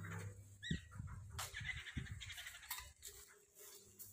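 Steel courtyard gate being unlatched and swung open, with a few metallic clanks and knocks. An animal calls briefly near the start, over a faint steady hum.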